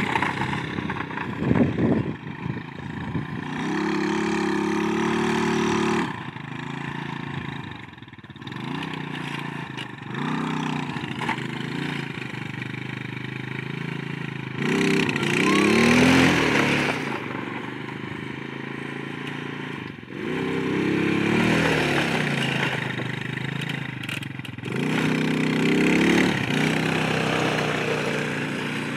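Keeway 150 cc quad (ATV) engine being ridden off-road, its pitch rising and falling as the throttle is opened and eased off in several bursts of revving.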